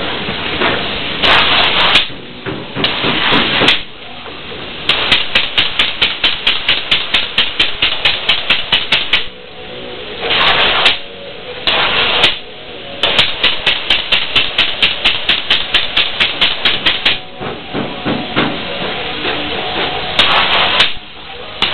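Spray foam gun hissing in bursts as foam insulation is sprayed. Between the bursts are long stretches of rapid, even pulsing, about five pulses a second.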